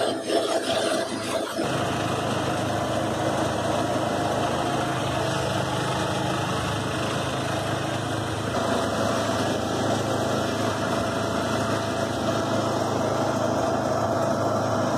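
John Deere 214 lawn tractor's single-cylinder Kohler engine running steadily under load, driving a front-mounted snowblower that is throwing snow, heard from inside a plywood cab.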